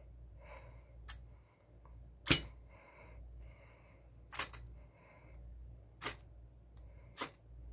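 Ferrocerium rod scraped hard with a ceramic striker, about five short, sharp rasping strikes a second or two apart, the loudest about two seconds in, showering sparks onto duct tape.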